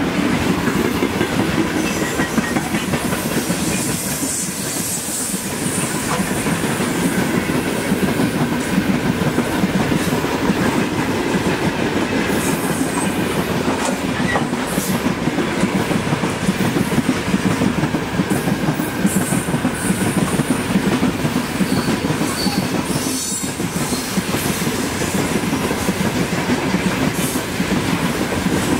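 Freight train hauled by a 2ES10 "Granit" electric locomotive rolling past, its wagons making a steady loud rumble with continuous wheel clatter over the rail joints.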